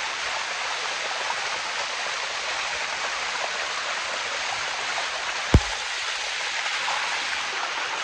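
Water of a limestone waterfall rushing as a steady noise, with one sharp thump about five and a half seconds in.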